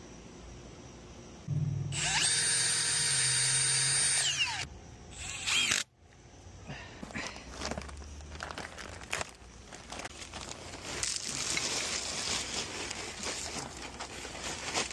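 Power drill running for a few seconds and winding down, then a second short burst. This is followed by a long stretch of irregular scraping and clicking handwork.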